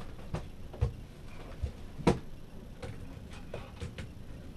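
Scattered light clicks and knocks, about eight at uneven intervals with one sharper knock about two seconds in, from hands working on a wooden-framed boat electrical switch panel and its fittings.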